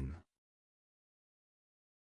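Digital silence: a synthesized voice finishes the word "clothesline" in the first quarter second, then nothing at all.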